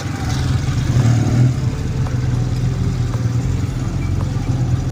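Honda CD200 Roadmaster's air-cooled parallel-twin engine running steadily at idle, with a brief rise about a second in.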